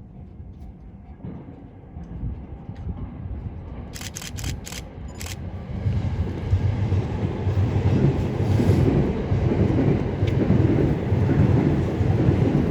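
Train approaching and passing close by. A low rumble swells over the first few seconds, a few sharp clicks come about four to five seconds in, and it is a loud, steady rumble from about six seconds on.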